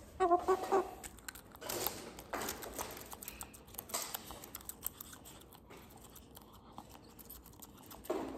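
Handling noise of a hen held close against a shirt: soft rustling with scattered light clicks, a couple of louder rustles in the first half, then quieter. A short pitched vocal sound comes just at the start.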